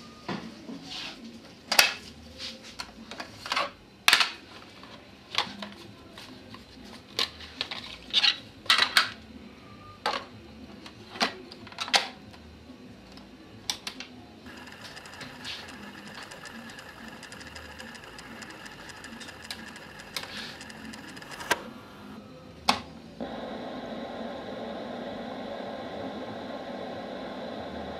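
Plastic cassette tapes and their cases clicking and clattering as they are handled, a string of sharp clicks over the first half. Then the keys of a portable cassette player click and the tape runs with a steady hum and hiss, which gets louder near the end.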